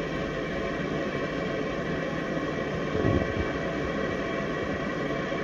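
Steady background hum and hiss, with a brief low thump about three seconds in.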